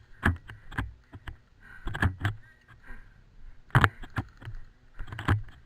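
Irregular thumps and knocks close to a helmet-mounted camera's microphone, about six or seven of them, with a faint rustle between: the sound of an airsoft player moving on foot in his gear.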